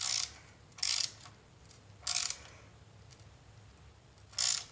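Ratchet head of a torque wrench ratcheting in four short strokes, spaced unevenly, as oil pan bolts are run down toward 60 inch-pounds.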